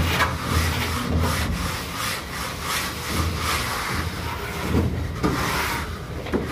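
Hollow box-section metal straightedge scraped back and forth across fresh cement plaster, a rhythmic rasping of repeated strokes as the plaster on a beam face is screeded level.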